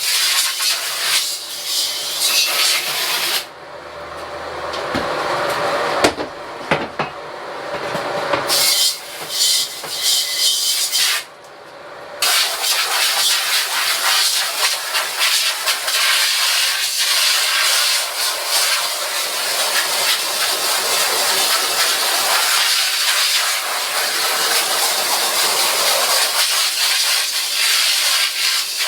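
Portable pressure washer spraying a high-pressure jet of water against a screen-printing screen, a steady hiss. It cuts out briefly twice, about four and eleven seconds in.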